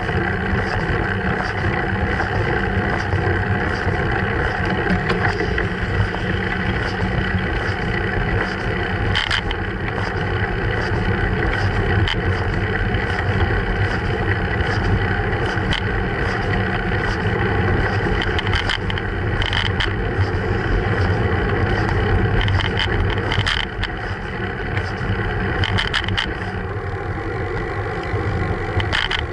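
Steady rumble of wind and road noise picked up by a bicycle-mounted action camera while riding, with scattered clicks and knocks from jolts over the road surface.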